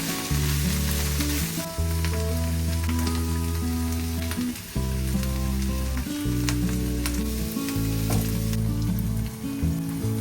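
Ingredients for ma la xiang guo sizzling as they are stir-fried in a hot pan, with scattered sharp clicks. Background music with sustained chords plays alongside.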